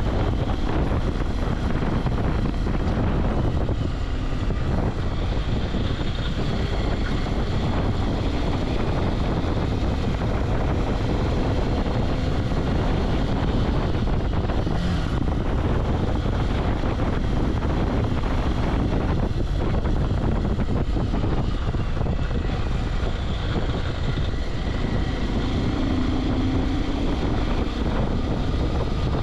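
Bajaj Pulsar 180's single-cylinder engine running steadily while the motorcycle is ridden, with wind rushing over the microphone.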